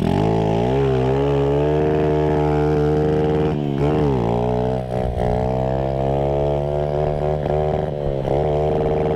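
Small motorcycle engine revving up, then held under steady throttle while the bike is ridden on its back wheel. The revs dip and pick up again briefly twice, about four seconds in and near the end.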